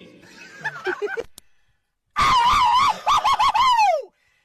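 Cartoon sound effects: a soft, wavering bleat-like voice, then after a short pause a loud, high, warbling cartoon scream that wobbles in pitch and slides down at the end.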